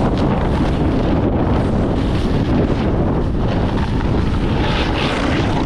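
Steady rush of wind buffeting the microphone of a camera carried by a snowboarder riding downhill, with no break.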